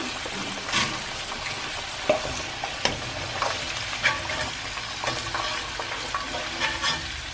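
Potato strips deep-frying in hot oil in a stainless steel wok, a steady sizzle, with scattered clinks of a metal slotted spoon stirring them and scooping them out.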